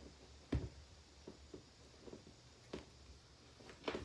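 A few sharp clicks and knocks of hard plastic vacuum parts being handled and worked apart, the loudest about half a second in, the rest fainter and scattered.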